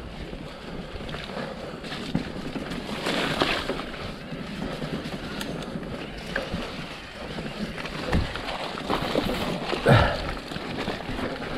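Mountain bike descending a wet, muddy, rooty trail: tyres running through mud and over roots, the bike rattling with many small knocks, and wind rushing over the microphone. One louder hit about ten seconds in.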